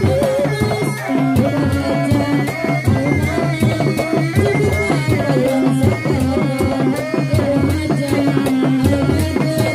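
Live Sundanese seni reak music: dogdog drums beat a fast, dense rhythm under a wavering, sustained melody line.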